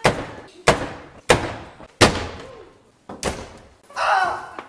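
Five loud, sharp bangs spread over about three seconds, each ringing briefly in a large hall, followed by a short vocal cry.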